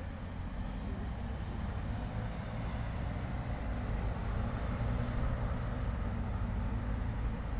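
Street traffic ambience: a steady low rumble of passing vehicles with general city noise, building slightly over the stretch.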